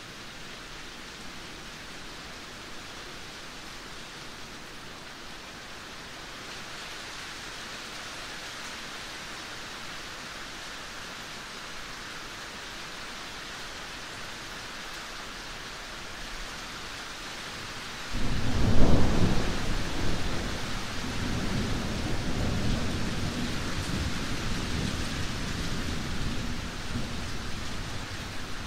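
Steady rain falling. About eighteen seconds in comes a sudden loud clap of thunder, then a deep rumble that slowly fades over several seconds.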